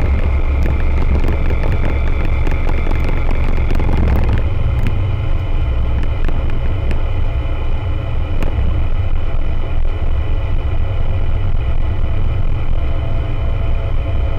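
Rotax 912 ULS four-cylinder boxer engine and propeller of an Aeroprakt A22LS Foxbat ultralight droning steadily in cruise flight, heard inside the open cockpit with wind noise. About four seconds in, the drone steps a little higher in pitch.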